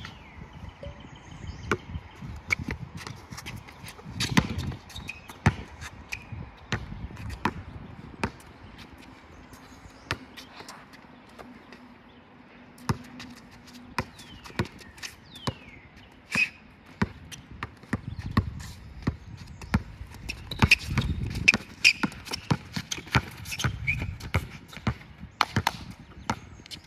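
Basketball bouncing on a court during one-on-one play: many sharp bounces at an uneven rhythm, bunched more densely in the second half.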